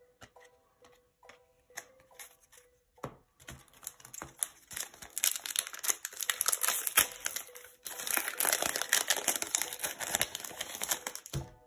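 A foil-lined Upper Deck hockey card pack crinkling and tearing open by hand. There are a few light clicks at first; the crackling starts about three seconds in and stays dense almost to the end.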